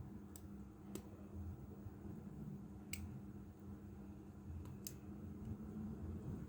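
Four sharp, separate clicks of small tools or plastic parts being handled during a smartphone screen replacement, over a low steady hum.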